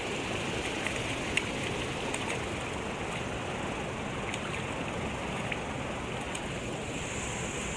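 Steady rush of river current over a shallow riffle, with a few short splashes and clicks as a hooked smallmouth bass thrashes and is grabbed by hand in the water.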